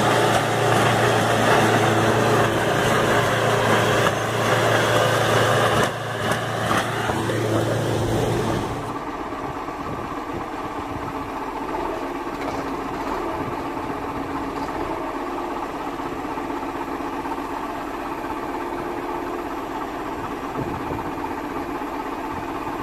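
Pickup truck engine running hard as its rear wheels spin and throw mud, a loud continuous rushing sound. About nine seconds in it cuts off abruptly, giving way to a quieter, steady engine sound from a wheel loader lifting a pickup truck.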